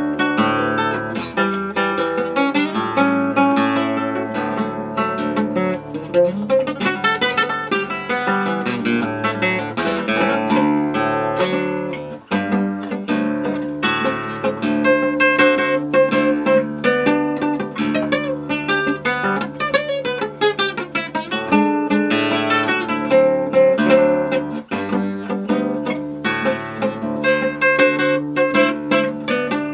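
Acoustic guitar playing a choro: a quick, continuous run of plucked melody notes over a moving bass line, with brief breaks between phrases about twelve seconds in and again near twenty-five seconds.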